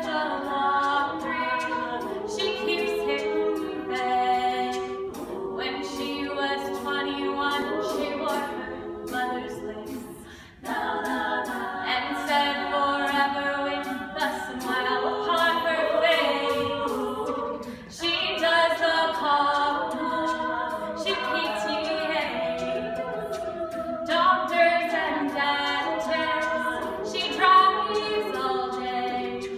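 A cappella group singing: a female lead voice over sustained chords from the rest of the group, with two short breaks between phrases.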